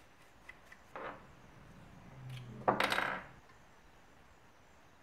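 Spatula scraping and knocking old carbide residue out of a lantern's metal carbide chamber, with light clinks of metal: a short scrape about a second in, then a louder scraping clatter for about half a second near the middle.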